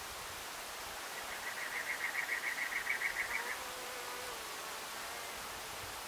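A small animal's rapid chirping trill: about fifteen evenly spaced chirps, roughly six a second, lasting a little over two seconds, over a steady background hiss.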